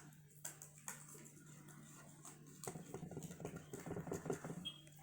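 Faint rustling and small taps of letter-sticker sheets being handled, over a low steady hum in a quiet room.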